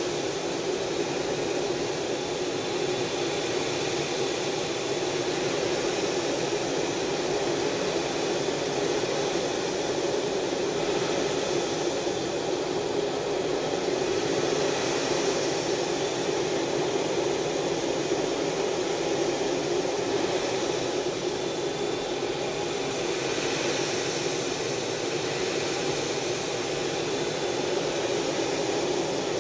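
Steady drone of an F/A-18F Super Hornet's jet engines and airflow heard inside the cockpit in level cruise, with a faint high whine running through it.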